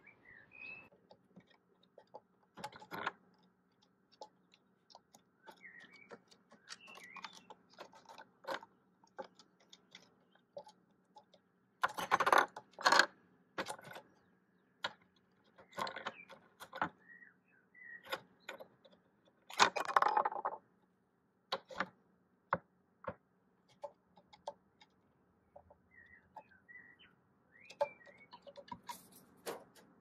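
A hooded crow working a wooden puzzle toy: irregular knocks and clatter of wooden pegs and plastic pieces on the board, loudest about twelve seconds in and again about twenty seconds in. Small birds chirp now and then in the background.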